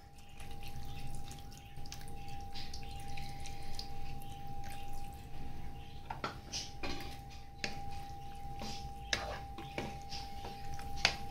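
Water poured into a pan of thick curd-and-masala okra gravy, splashing and dribbling into it. From about six seconds in, a wooden spatula stirs the watery gravy, knocking and scraping against the pan in scattered clicks, over a faint steady hum.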